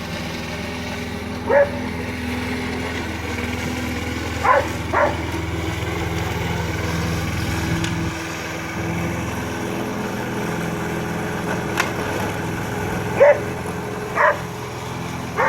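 A lawn mower's engine running steadily while a border collie barks at it in short sharp barks, about six times, in scattered ones and twos.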